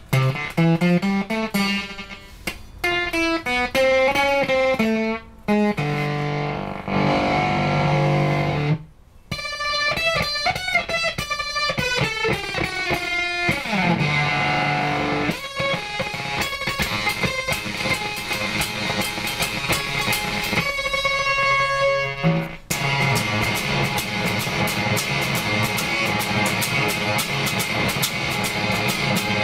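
Electric guitar played through Fairfield Circuitry effects pedals: single notes and short phrases with a heavily effected, modulated tone, a downward pitch glide about halfway through, then from about two-thirds of the way in a sustained buzzing tone with a fast regular pulsing.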